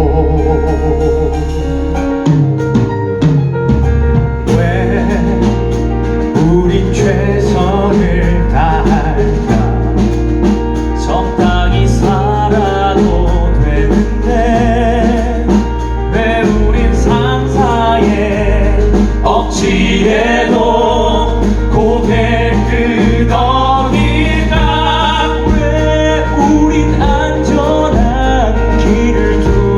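Live musical theatre song: singing in Korean over a band accompaniment with a strong bass line.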